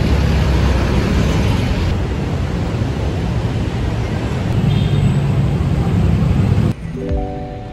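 Steady rumbling noise of a vehicle or traffic, cutting off suddenly near the end as a few soft music notes begin.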